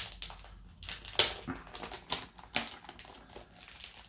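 Plastic comic bags and packaging being handled: irregular crinkles and clicks, with two louder snaps about a second in and again a little later.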